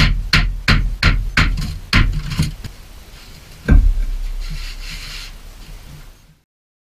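Small sledgehammer striking a 4x4 wooden block laid across concrete pavers, about three blows a second for the first two and a half seconds, tamping the new paver down level with its neighbours. A single heavier thud follows about a second later, then faint rustling before the sound cuts off suddenly.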